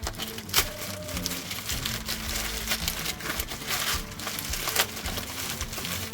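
Crinkling and rustling of packaging being handled and opened, with sharp crackles about half a second in and again near the end, over soft background music.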